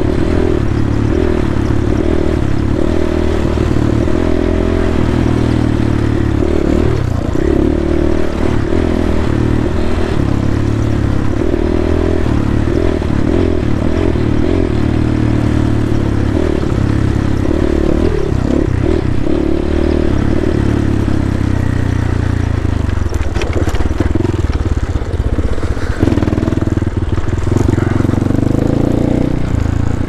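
GPX Moto FSE 250 dirt bike's 250cc engine running under changing throttle while being ridden, with a few sharp clatters from the bike over rough ground.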